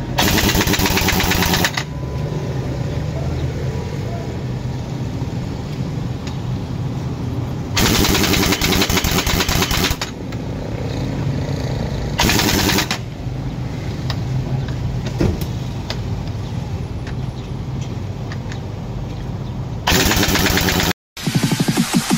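Impact wrench hammering on the wheel nuts of a dump truck wheel in four bursts, the longest about two seconds. A steady engine hum runs underneath between bursts.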